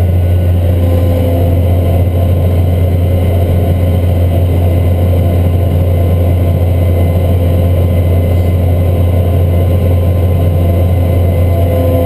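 Cat Challenger MT765C track tractor running steadily under load, heard from inside its cab as a loud, even low drone with a faint steady whine above it.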